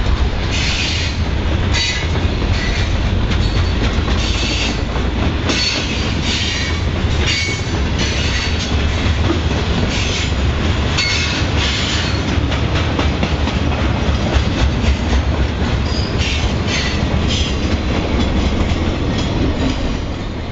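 Freight train rolling past: a steady rumble of wheels on rail, with short high-pitched squeals and screeches from the wheels coming at irregular moments, typical of cars rounding a curve.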